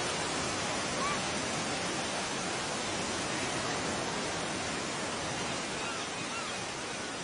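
Steady rushing noise like heavy falling spray or surf, even in level throughout, with a few faint short chirps over it.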